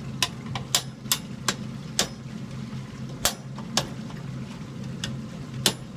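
A clicking furnace: sharp, irregular clicks about twice a second over a steady low hum. The owner hears the clicking at the valves and cannot tell whether it comes from the pipes or the valve.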